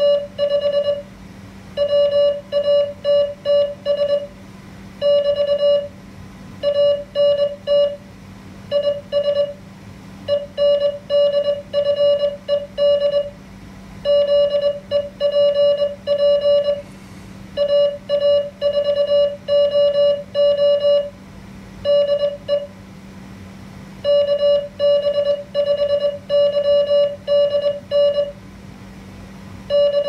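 Morse code (CW) sidetone from an MFJ-493 memory keyer's QSO simulator: a single steady beep keyed on and off in dots and dashes, with short pauses between words. It spells out a simulated station's reply: "RIG HR IS HQ180 RUNNING 45 WATTS = ANT IS ENDFED ZEPP AA4OO DE KB5YDN K".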